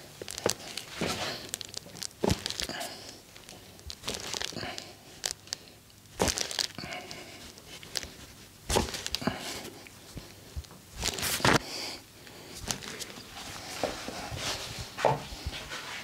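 Hands working over a person during a massage: continual rustling and rubbing broken by irregular sharp taps and slaps, a few louder ones past the middle.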